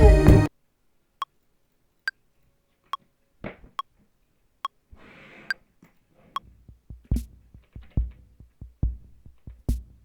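Elektron Digitakt II drum machine: the full beat cuts off suddenly half a second in, leaving a lone short pitched click ticking steadily a little more than once a second. A brief hiss sounds around the middle, and from about six seconds in deep kick drum hits come in under the clicks in a repeating pattern.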